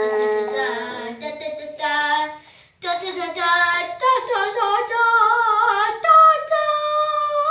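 A girl singing a drawn-out "da da da" fanfare, with long held notes that waver and climb in pitch and a short break about two and a half seconds in.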